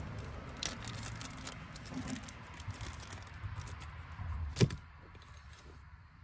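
Small plastic parts bag holding new A/C O-rings crinkling as it is torn open and handled, with a sharp click about four and a half seconds in; after that the crinkling dies down.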